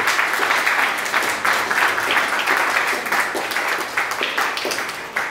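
Applause, a dense patter of clapping that gradually fades toward the end.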